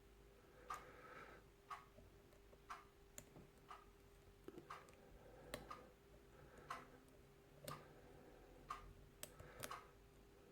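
Faint, even ticking about once a second, like a wall clock, with a few softer extra clicks in between and a faint steady hum underneath.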